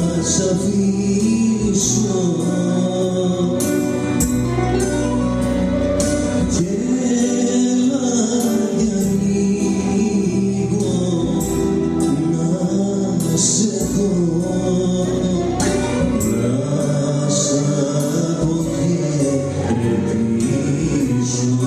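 A man sings a song into a microphone, backed by a plucked bouzouki and a keyboard, with sustained melodic lines and a steady strummed pulse.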